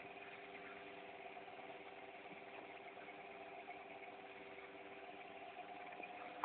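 Faint steady hum with a light hiss, with no distinct events: room tone.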